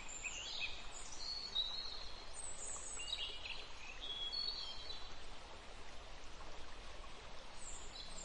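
Birds chirping and whistling in short, high, sliding calls scattered throughout, over a steady outdoor hiss.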